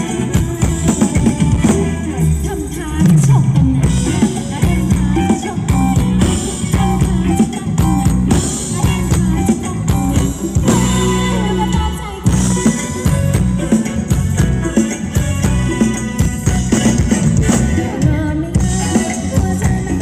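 Thai ramwong dance music from a live band over a PA system: a drum kit keeping a steady beat with a singer.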